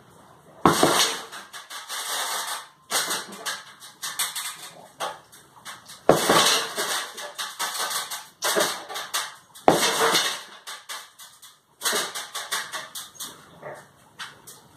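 Punches landing on a hanging heavy bag on a steel stand, about six hard hits a couple of seconds apart, each followed by the bag's chains and the metal frame rattling and jingling.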